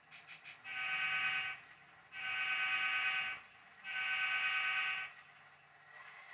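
Diesel horn from the sound decoder of a model Alco diesel locomotive, sounded three times. Each blast is a steady chord about a second long.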